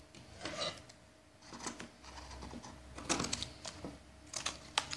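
Yellow padded mailer envelope being handled on a wooden tabletop: scattered light rustles and taps, with a few sharp clicks, the loudest near the end.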